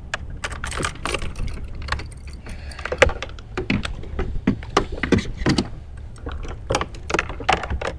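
Irregular clicks, clinks and knocks of fishing gear being handled on a small boat, over a steady low rumble of wind and water.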